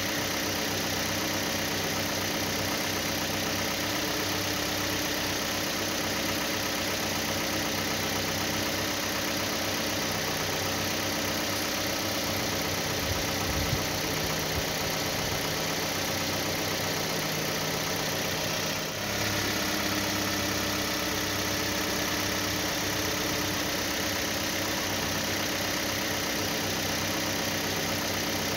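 Steady engine idling sound effect, unchanging throughout, with a short dip and restart a little past two-thirds of the way through.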